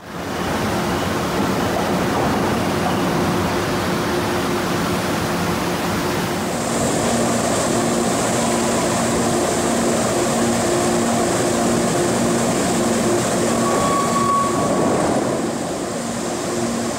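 Steady industrial machinery noise of a steel mill: a constant rumble with a low hum. A high hiss joins about six seconds in, and a brief high tone sounds near the end.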